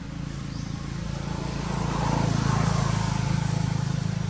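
A motor vehicle's engine passing by with a low steady hum, growing louder to a peak about halfway through and then fading.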